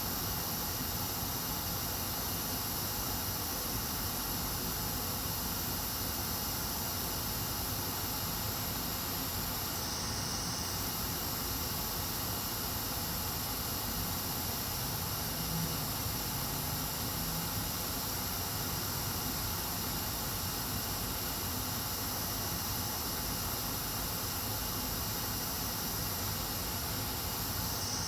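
Hot-air rework station blowing a steady hiss of 500 °C air onto a laptop motherboard to desolder a burnt chip.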